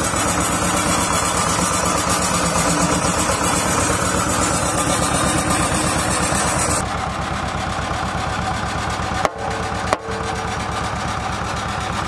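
Road roller's diesel engine running steadily with a fast, even chug as the steel drum rolls. The sound turns duller about seven seconds in and briefly drops out twice.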